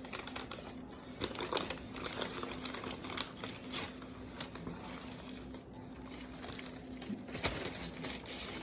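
Packing material being crinkled and crumpled by hand as a mail-order plant is unwrapped, in irregular rustling bursts, over a faint steady hum.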